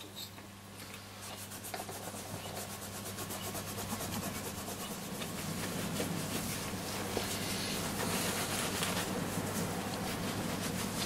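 Sandpaper rubbed by hand lightly around the rough edge of a small aluminium cap, a steady fine rasping of quick back-and-forth strokes that grows gradually louder.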